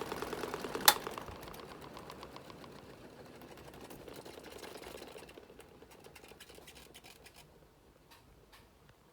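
Mini washing machine running with a fast, even mechanical rhythm. A sharp click comes about a second in, then the machine winds down and fades over several seconds, with a few faint clicks near the end.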